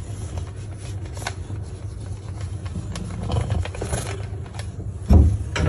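Sticky lint roller rubbing and scraping over a cat's fur, with scattered crackles and clicks over a low rumble and a louder thump near the end.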